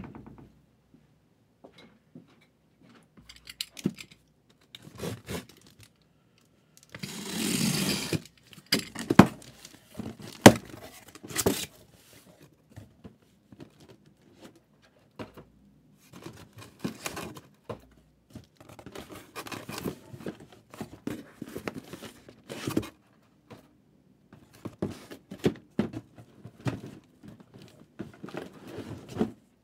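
Sealed trading-card packs and a hobby box being handled on a table: scattered clicks and taps of packs set down, and one tear lasting about a second and a half about seven seconds in. Soft wrapper crinkling follows in the second half.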